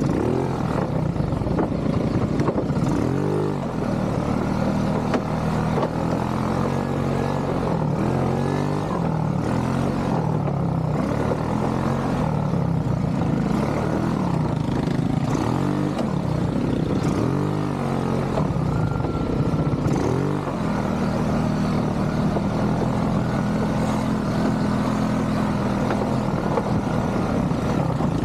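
ATV engine running under throttle, its pitch rising and falling again and again as the gas is worked, then holding steadier for the last several seconds.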